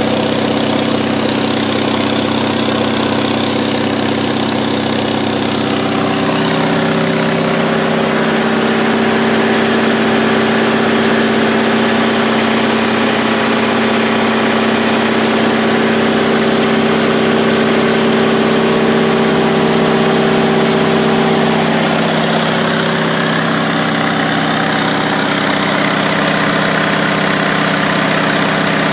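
MEP-002A military generator's two-cylinder diesel engine running steadily under heavy electrical load, holding its speed without bogging down. The tone changes slightly about six seconds in.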